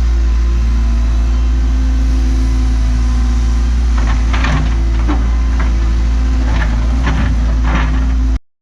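Cat 314E excavator's diesel engine running steadily, with several short knocks or clanks in the second half as it works the boulders. The sound cuts off abruptly just before the end.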